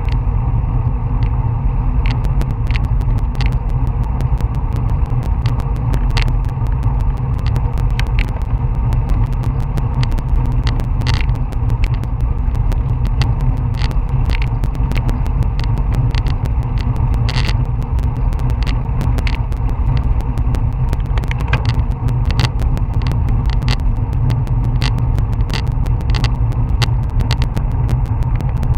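Wind rumbling over a bike-mounted Garmin VIRB action camera's microphone on a road bike at about 20 mph, steady and heavy in the low end. Irregular sharp clicks and rattles are scattered throughout.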